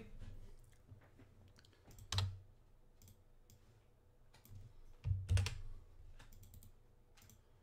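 Computer mouse clicks and keyboard keystrokes at a desk: scattered light clicks, with two louder knocks about two seconds in and about five seconds in.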